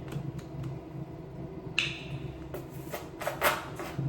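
Small objects being handled: a few light clicks and several brief scratchy rustles over a low steady hum.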